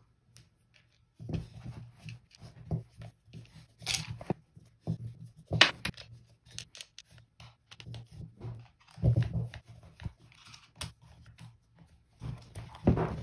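Plastic parts of a Meltric DSN30 receptacle being handled and pressed together by hand on a cloth-covered table: scattered clicks, taps and rustles with a few louder knocks. Near the end a screwdriver is set to a screw in the housing.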